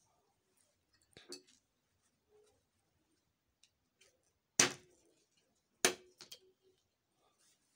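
Sharp clicks and knocks of a marker and gloved hand on a glass-topped table while writing on a card: a couple of small taps about a second in, then two loud knocks about four and a half and six seconds in, the second followed by a few lighter clicks.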